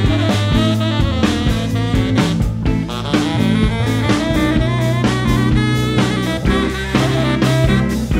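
Tenor saxophone playing a solo line over a live band, with a drum kit keeping a steady beat and a bass guitar underneath.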